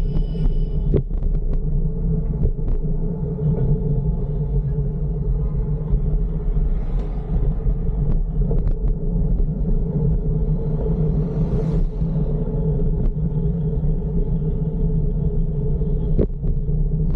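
Steady low rumble of wind and road noise on a bike-mounted camera's microphone while riding a fixed-gear bicycle, with scattered light clicks. Two brief swells of passing traffic come about seven and eleven seconds in.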